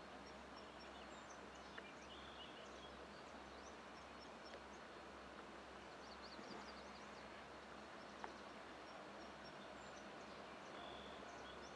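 Near silence: a faint steady background hiss, with a few faint bird chirps and two small clicks.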